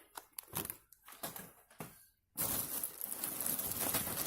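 Plastic snack packets being handled and crinkled: scattered short rustles, then a sudden dropout just after two seconds, followed by dense, continuous crinkling.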